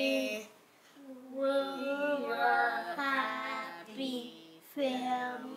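Young girls singing a song in held, drawn-out notes, with a brief break about a second in.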